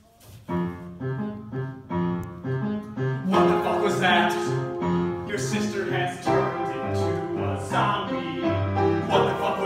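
Piano accompaniment for a musical-theatre song, playing pulsing, repeated chords. From about three seconds in, the sound grows fuller and a voice holds long sung notes over the piano.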